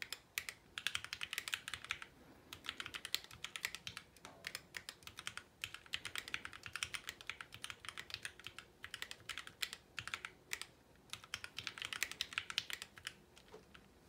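Typing on a mechanical keyboard: rapid runs of keystroke clicks in bursts of a second or two, with short pauses between them.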